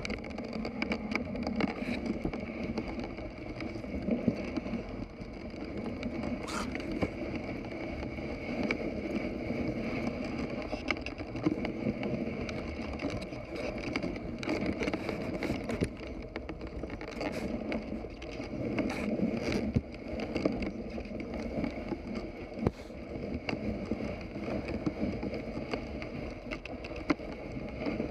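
Dog sled moving through deep fresh snow: a steady scraping rush of the runners and the team plowing through the snow, with occasional sharp clicks.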